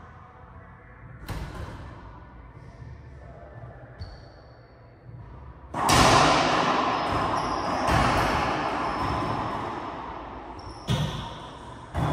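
Racquetball play: a handful of sharp cracks from the ball being struck and hitting the court walls, the loudest near six seconds in, each ringing on in the enclosed court's strong echo.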